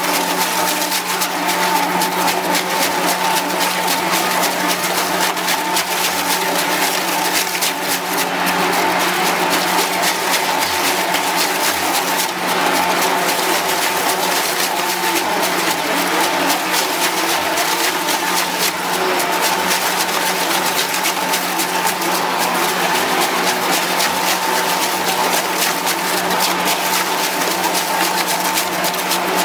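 Twin-shaft shredder's toothed cutters tearing apart a rubber tyre: a steady machine drone with continuous rapid crunching.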